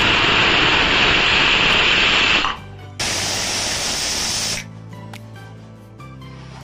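Stovetop pressure cooker whistling: the weight on the vent lifts and lets out steam in a loud hiss, a sign that full pressure has built up inside. There are two blasts, one of about three seconds and then, after a short break, one of about a second and a half, with background music underneath.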